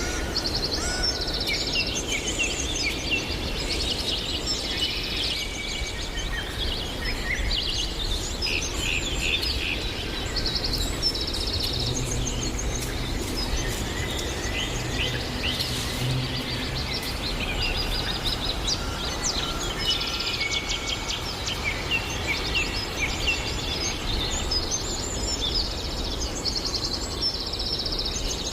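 Several songbirds singing at once, a dense chorus of quick chirps and trills, over a steady low rumble of background noise.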